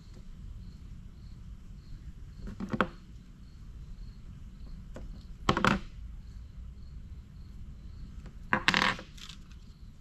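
Small metal parts clinking and clicking as they are handled, in three short bursts of clicks spaced about three seconds apart, over a steady low hum.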